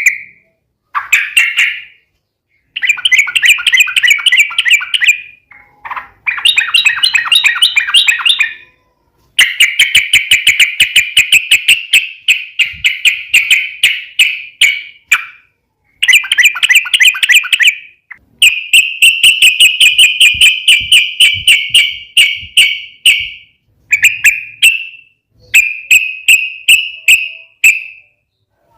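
Yellow-vented bulbul (trucukan) singing long, rapid rolling phrases of bubbling notes. The phrases come one after another with short pauses between them.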